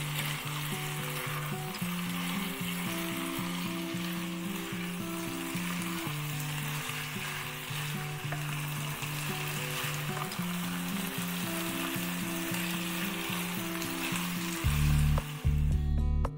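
Beef and potato cubes in sweet soy sauce sizzling in a pan as a spatula stirs them, over soft background music. About fifteen seconds in, the sizzling stops and louder music takes over.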